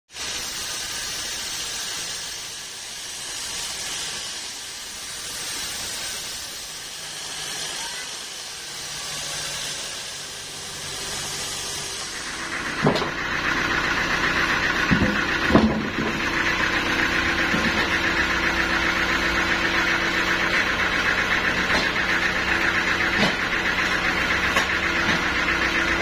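Bandsaw mill cutting through a dry teak log: a steady high hiss that swells and fades every couple of seconds. About halfway through this gives way to the mill's machinery running with a steady hum, broken by a few sharp knocks as the log is moved on the carriage.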